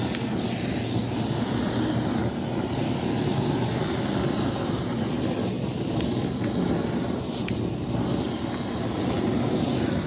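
Hose-fed LPG flame gun burning with a steady rushing roar as its flame is swept along the foot of a wall, flame-disinfecting the shed.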